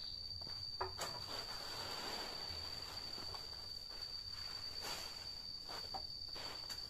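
An insect droning at one steady high pitch throughout, with dry leaves rustling and crunching in short strokes as armfuls of fallen leaves are gathered and tossed onto a pile.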